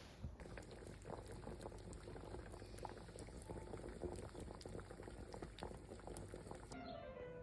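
Water boiling: a dense, steady crackle of bubbles. It stops near the end, where music comes in.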